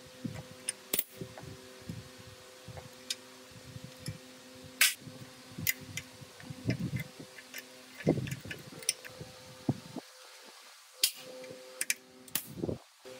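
Irregular clicks, taps and knocks from hand work with tools and parts, over a steady low hum. A few sharp knocks stand out, and the hum drops out for a couple of seconds near the end.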